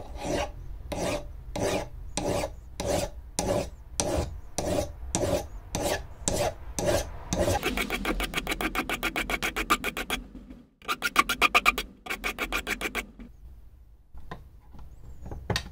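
Flat hand file rasping over a metal dog tooth clamped in a vise, to take lips and burrs off the worn part. About a dozen long, even strokes over the first seven seconds give way to quick, short strokes in several rapid runs, with quieter scraping near the end.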